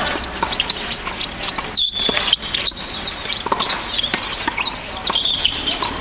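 Birds chirping again and again in short high notes, two of them drawn out, with a few sharp knocks of a tennis ball off racket strings.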